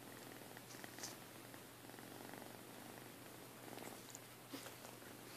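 Sphynx cats purring faintly and steadily, with a couple of soft clicks.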